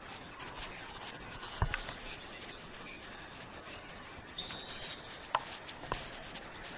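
Hands rubbing and peeling modelling clay off a plaster block, with scraping, handling noise and three short knocks of the block against a wooden board. A brief high squeak comes about halfway.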